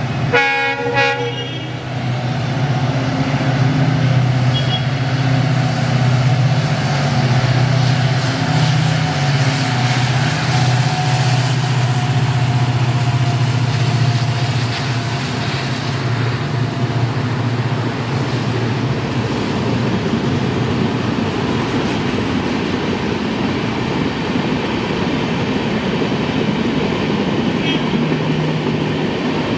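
WDP4D diesel-electric locomotive sounds a short horn blast about half a second in. It then passes with its EMD two-stroke diesel engine running as a steady deep drone. Toward the end the drone gives way to the rumble of passenger coach wheels rolling over the track.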